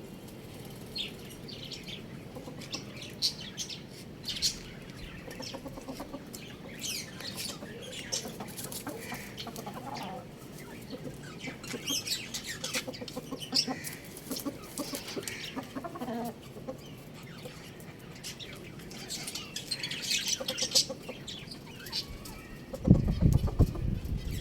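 Chickens clucking, with many short high-pitched chirps scattered throughout. There is no clear crow. Near the end a loud, low burst of noise comes in, which may be wing-flapping or handling.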